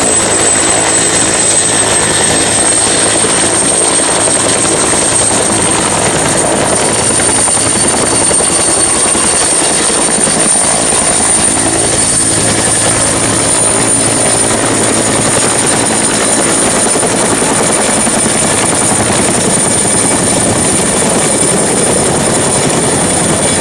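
Helicopter rotor sound from a toy helicopter: a loud, steady whirring with a constant high whine. It starts and stops abruptly.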